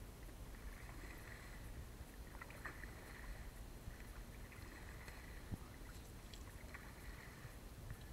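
Faint swish of canoe paddle strokes through still water, about one every two seconds, with a light knock or two.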